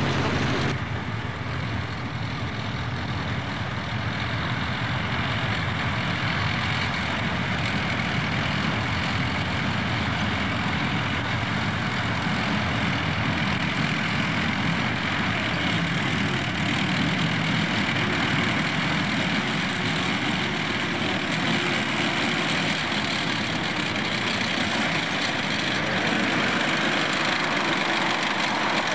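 Heavy tracked military tractor driving off-road, its engine running under load with a steady, dense noise.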